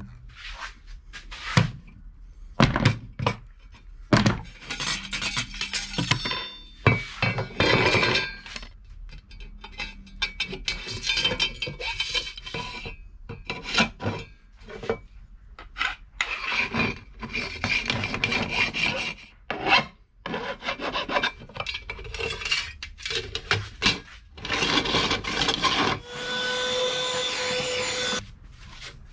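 Irregular scraping and rasping strokes of hand tools working aluminium flat bar, with knocks and clinks between them. Near the end a small handheld vacuum runs for about two seconds with a steady motor hum, then cuts off.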